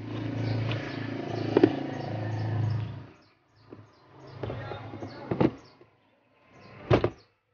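Plastic glove box of a Toyota Hilux being handled and refitted into the dashboard: rubbing and scraping for about three seconds, then a few sharp plastic knocks and clicks as it is pushed into place.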